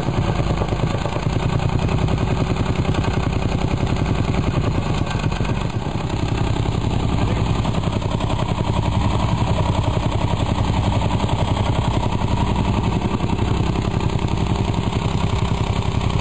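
Gas-engined jumping jack (tamping rammer) running, its foot pounding the ground in a rapid, even rhythm as it compacts sand fill.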